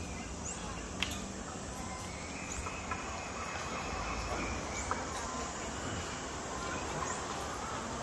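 Steady open-air background noise with a few light clicks and faint short high chirps.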